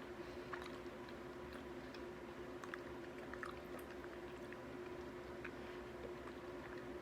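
Faint, soft chewing of a fatty piece of A5 Wagyu steak, heard as small scattered wet clicks over a steady low hum.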